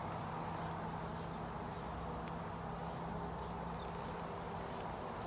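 Honeybees buzzing steadily around an open nuc hive while its frames are being inspected.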